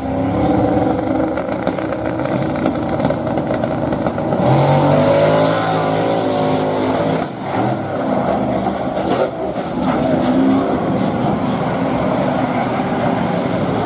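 Two drag race cars held at high revs on the start line, then launching at full throttle about four and a half seconds in and running hard down the track, engine pitch climbing as they pull away.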